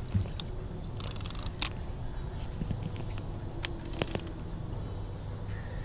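A steady high-pitched insect chorus droning without a break, with a few sharp clicks from the fishing rod and reel being handled, including a short rapid ratcheting about a second in.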